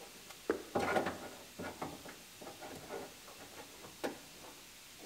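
Light, scattered clicks and knocks of a car door lock actuator and its cables being handled and fitted by hand inside a door's inner panel, with one sharper click about four seconds in.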